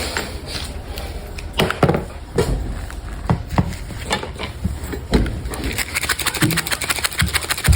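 A Santa Claus KitKat's packaging being handled and opened: irregular crinkles, clicks and taps. From about six seconds in, a fast, even run of ticks.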